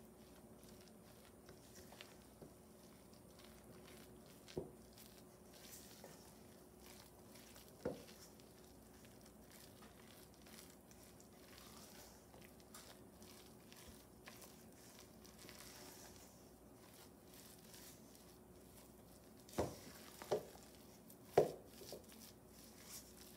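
Cheddar ale biscuit dough being folded and combined in a mixing bowl, with soft scraping and clicks. A utensil knocks against the bowl once about five seconds in and again about eight seconds in, then three times in quick succession near the end, the last of these the loudest.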